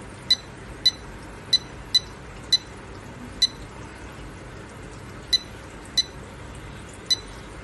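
Short, high key-press beeps from a handheld thermal inkjet printer's touchscreen, one for each letter tapped in with a stylus. About nine beeps come at irregular intervals.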